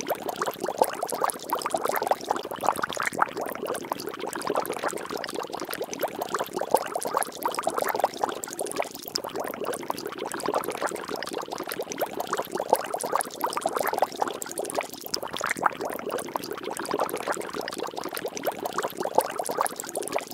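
Steady bubbling, splashing water: a dense, unbroken run of small drops and pops.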